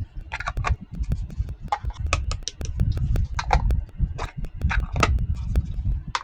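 Hands handling small plastic pieces of a toy kitchen set: irregular clicks and light taps over a low rubbing and handling noise.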